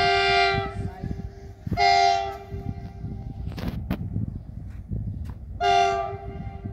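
Air horn of an approaching train hauled by two WDG4G diesel locomotives, sounding three blasts: a long one at the start, a second soon after, and a third about five and a half seconds in.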